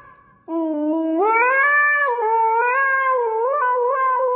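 A pet's long, wavering howl, starting about half a second in and held with slow rises and falls in pitch.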